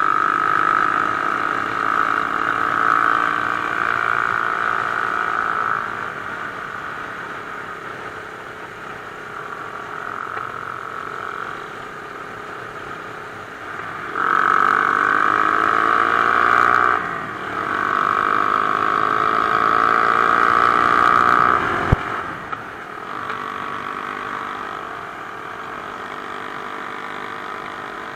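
Mash Cafe Racer 250's single-cylinder engine running at road speed, heard from a bike-mounted camera with wind noise. In the second half it pulls hard twice, rising in pitch each time, with a short drop between as it shifts up a gear, then the throttle closes with a click.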